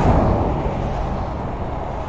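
Highway traffic noise: a vehicle passing close by, loudest at the start and then slowly fading as it moves away.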